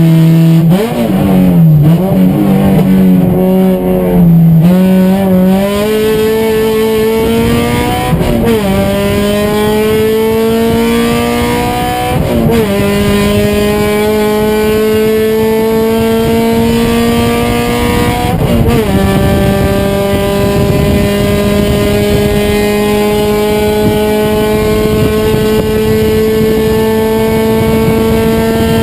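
Race car engine under hard acceleration: its pitch wavers for the first few seconds, then climbs steadily through the gears, dropping sharply at upshifts about eight, twelve and nineteen seconds in.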